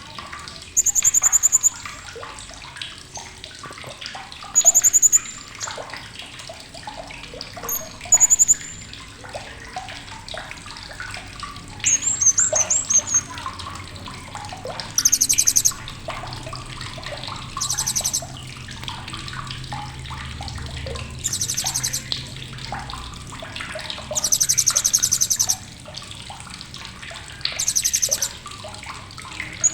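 Blue-crowned hanging parrot (srindit) giving sharp, very high-pitched, rapid trilling chirps. The bursts come in about nine short bouts a few seconds apart, each under a second or so long, over a steady hiss.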